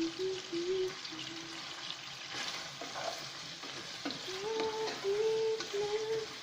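Chicken thighs sizzling as they fry in a pan, with a few sharp clinks of a utensil against the pan. A slow tune of held notes carries over the sizzle.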